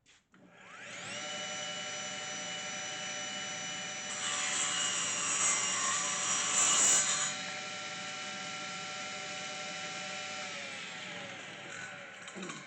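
1940s Darra James table saw switched on with a click: the motor and blade spin up to a steady whine, cut through a piece of wood for about three seconds from four seconds in, then run free again and wind down after the saw is switched off near the end.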